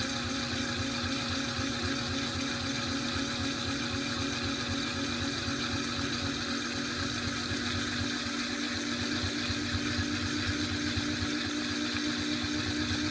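2012 LG top-load washing machine spinning its drum at low spin speed on the delicates cycle: a steady motor hum with a fast, even low pulsing underneath.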